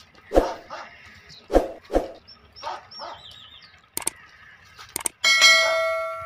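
A dog barking a few times, then two clicks and a bright bell chime that rings and slowly fades: the sound effect of a subscribe-button animation.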